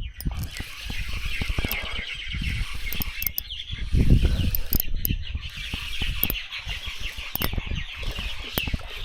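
Spinning reel being cranked to bring in a hooked tailor, its gears making a fast, even ticking whirr, over rumbling handling noise and knocks from the rod and line.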